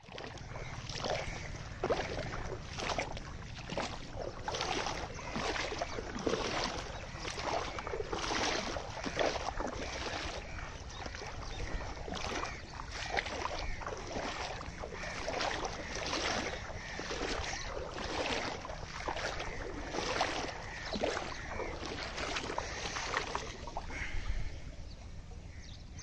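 Water splashing in a steady rhythm, roughly two splashes a second, like strokes moving through water.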